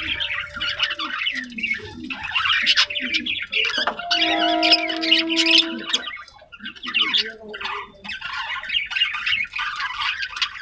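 A flock of budgerigars chattering and squawking continuously, many birds at once. A steady tone sounds over the chatter for about two seconds near the middle.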